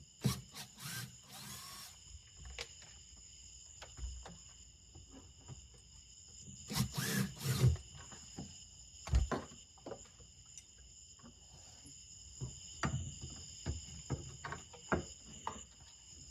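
Cordless drill/driver backing out the screws that hold a boat's fuel-tank brackets, in two short runs, with scattered knocks and taps of tools and fittings in between.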